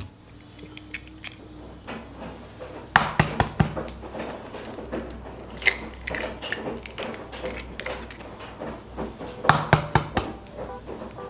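Kitchen clatter: dishes and utensils knocking and clinking on a counter, in irregular clusters. There is a run of sharp knocks about three seconds in, a few more just before six seconds, and another busy run near the end.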